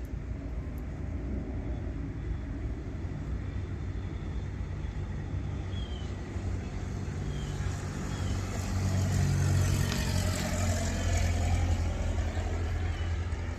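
A motor vehicle passing, its sound swelling from about eight seconds in and easing near the end, over a steady low rumble of traffic.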